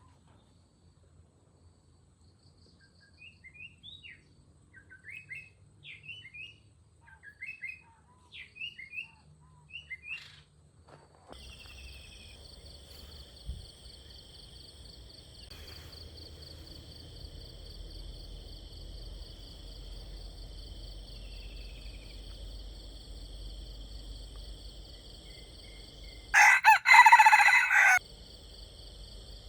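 A rooster crows once, loudly, near the end, a short crow of about a second and a half. Before it a small bird chirps in quick short notes for several seconds, then a steady high insect drone sets in and runs on under the crow.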